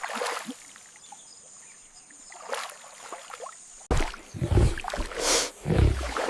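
Water lapping and gurgling, faint at first. Then, from about four seconds in, louder splashing with two heavy, deep surges of water.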